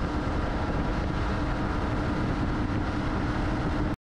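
Fishing boat's engine running steadily while underway, a constant hum under the rush of wind and water.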